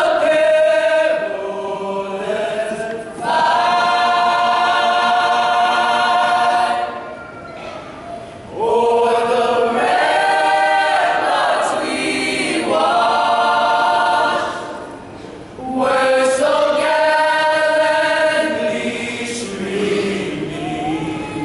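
Large choir of men and women singing a national anthem a cappella, in long held notes and phrases of a few seconds with short breaks for breath between them.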